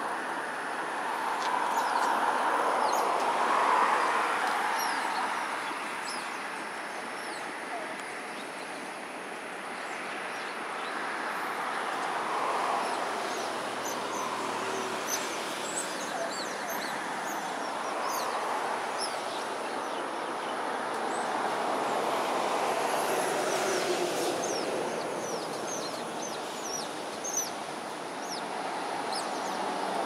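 Steady background din of distant city traffic, swelling and fading every few seconds, with many short, high chirps scattered throughout.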